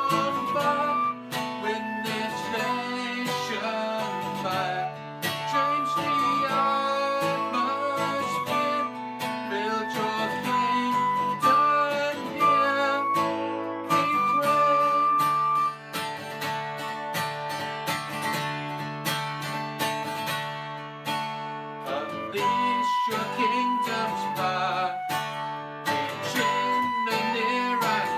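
Flute playing a sustained melody over a strummed acoustic guitar: a worship song in steady rhythm.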